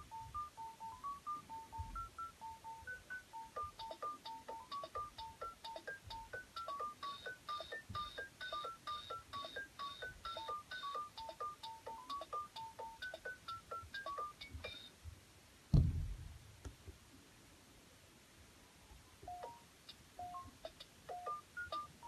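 Fisher-Price toy smartphone playing an electronic beeping ringtone tune over a ticking beat, which stops after about fifteen seconds. A single thump follows, the loudest sound, and a new short beeping tune starts near the end.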